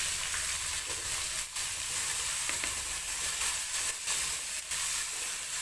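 Chopped onion sizzling in hot oil with cumin seeds in a kadai, a steady frying hiss, with a metal spatula stirring and scraping against the pan now and then.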